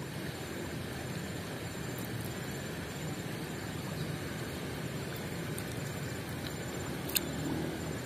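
Steady rushing of a shallow stream, with one sharp click about seven seconds in.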